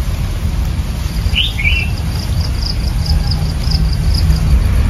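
Outdoor ambience: an insect trilling in a steady run of high pulses, and a bird chirping twice about one and a half seconds in, over a steady low rumble.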